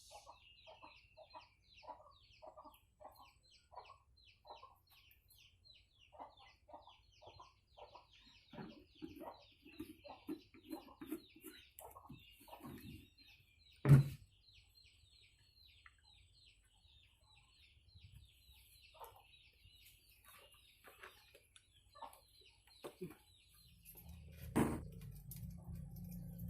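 Chickens clucking in a run of short calls, about two a second, over continuous high chirping. A single sharp knock comes about halfway through.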